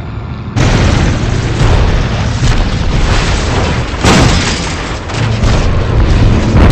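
Film battle sound effects: a quiet music bed cuts off about half a second in, and dense, continuous explosions and blasts follow, with a fresh burst about four seconds in.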